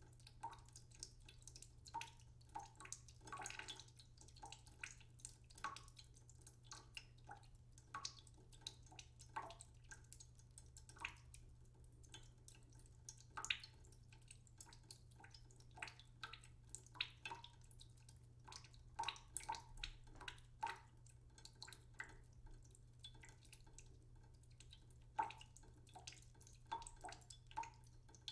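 Water dripping slowly into a cooking pot in a sink: faint, irregular small plinks and drips, a few a second.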